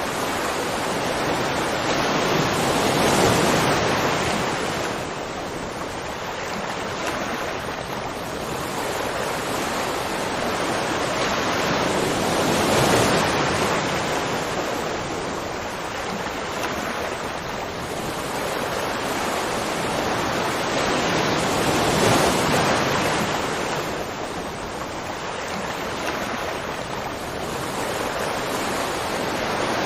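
Waterfall: a steady rush of falling water that swells and eases slowly, about every nine or ten seconds.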